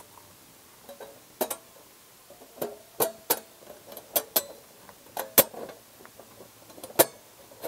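Thin stainless-steel hopper panels of a pellet stove being slotted together by hand: a string of sharp metallic clicks and clinks, about a dozen at uneven intervals, some with a brief ring.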